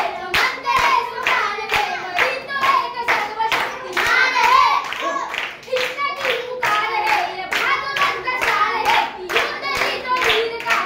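Two boys singing a song together, with steady hand claps keeping time, about two or three a second.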